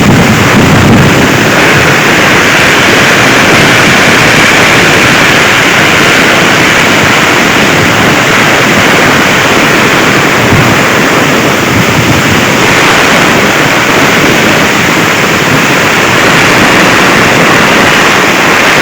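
Heavy rain in a windstorm: a loud, steady rush of rain and wind, with the wind buffeting the microphone.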